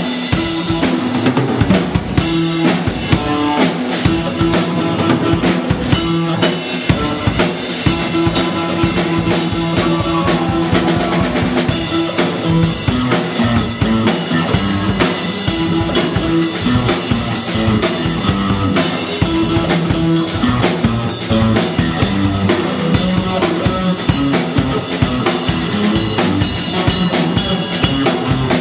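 A small rock band playing live: a drum kit keeping a steady beat under electric guitar and electric bass.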